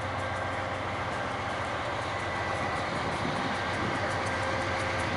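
A GE AC44i diesel-electric locomotive leads a freight train on an approach, its diesel engine running with a steady rumble and wheels on the rails, growing slightly louder as it nears.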